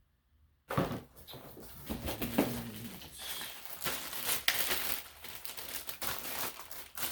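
Packaging being handled: irregular rustling and crinkling with light clicks and knocks of plastic parts, starting about a second in.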